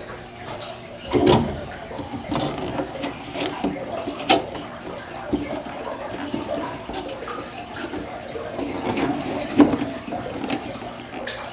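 Plastic humidity dome and grow light being handled and set onto a seed-starting tray: scattered knocks and clicks, the loudest about a second in, near the middle and near the end.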